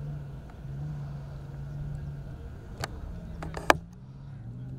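Rally jeep's engine running as it speeds along a dirt track, its pitch shifting up and down in steps. A few sharp clicks come about three-quarters of the way through, one a loud crack.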